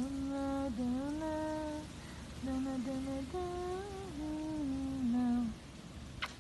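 A woman humming a wordless tune in short phrases of held and gliding notes, with brief pauses between them. A single short click sounds near the end.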